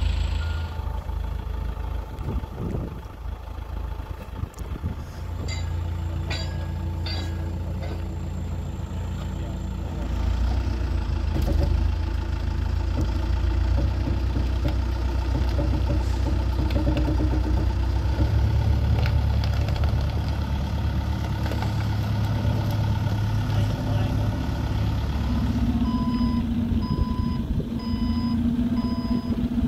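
Machine engine running steadily as a backhoe loader tows an old trolley coach, with a few short knocks several seconds in. Near the end a reversing alarm starts beeping at an even pace while an engine runs under it.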